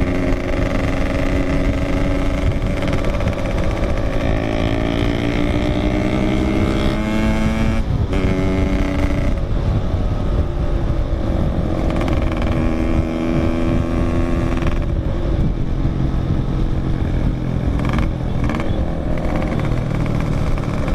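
Yamaha RX-King's 135cc two-stroke single engine under way through an aftermarket exhaust, its note climbing as the bike accelerates, breaking off at a shift about eight seconds in, then running at a steadier pitch with smaller rises and drops.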